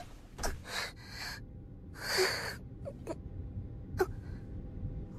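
Breathy gasps from a girl coming round after fainting: a couple of quick breaths in the first second and a longer gasp about two seconds in, followed by a few short clicks.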